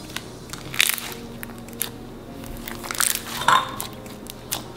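Crunchy bead-filled slime being squeezed and stretched by hand, giving a string of sharp crackles and pops, loudest about a second in and again around three seconds in, over quiet background music.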